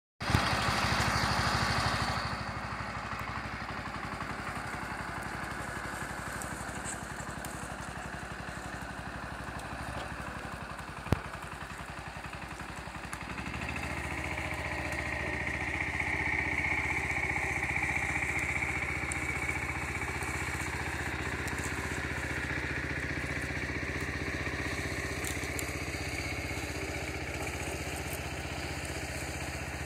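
Wheel Horse garden tractor engine running steadily, louder for the first couple of seconds, quieter for a while, then louder again from about halfway. A single sharp click about 11 seconds in.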